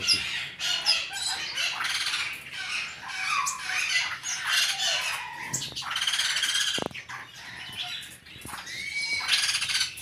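Many caged parrots and other small aviary birds calling at once: continuous squawking mixed with quick high chirps.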